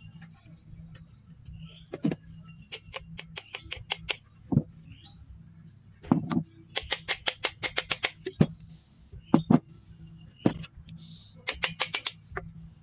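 Quick runs of light, sharp taps and clicks with a few duller knocks, from hand tools working pins into a homemade speargun's trigger mechanism.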